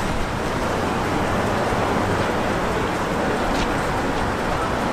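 Steady noise of city street traffic, an even rumble and hiss with no siren or horn.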